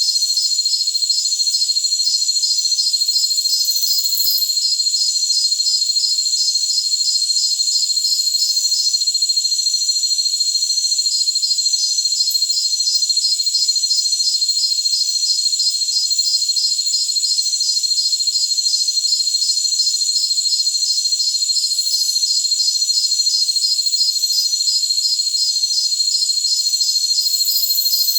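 Chorus of jungle crickets: a steady high trill with a pulsing chirp over it, about three chirps a second. The chirping stops for a couple of seconds about nine seconds in, then picks up again.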